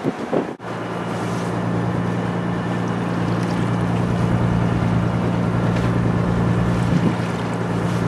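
Boat engine running steadily with a low, even hum, over a hiss of wind and water; it comes in abruptly about half a second in.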